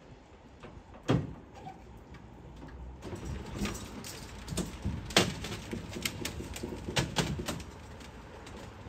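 Scattered knocks and clunks from a covered box trailer being handled and moved by hand, the loudest about a second in and another about five seconds in.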